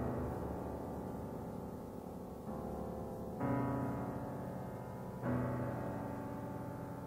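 Solo piano playing a movement of a piano sonata: full chords struck one at a time, three new ones in a few seconds, each left to ring and slowly fade before the next.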